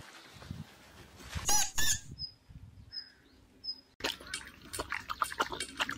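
Border collie eating wet food from a steel dog bowl: rapid licking and smacking clicks that start suddenly about four seconds in. Before that, birds chirp: two loud chirps near the middle, then faint high peeps.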